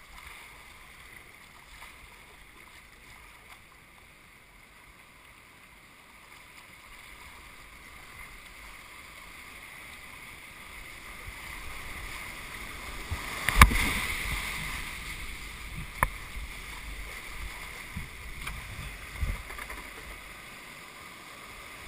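Whitewater rapids rushing steadily, growing louder through the stretch as the river steepens toward the drop. A few sharp knocks and splashes cut through, the loudest about halfway through.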